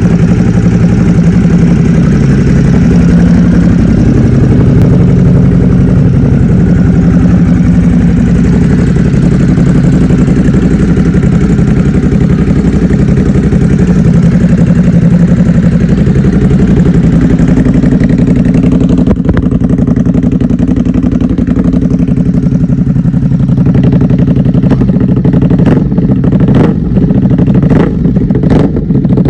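Ducati Hypermotard 950's L-twin engine running steadily through an SC-Project aftermarket exhaust, loud and close. Several sharp cracks are heard near the end.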